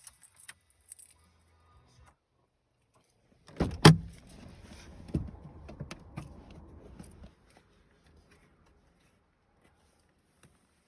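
A single loud thump about three and a half seconds in, followed by a few seconds of clattering and rattling handling noise with a few smaller knocks, then quiet. The engine is not running.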